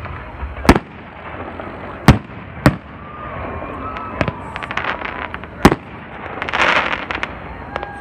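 Aerial firework shells bursting: sharp loud bangs every second or two, five big reports in all with smaller cracks between them, and a rush of crackling about six and a half seconds in.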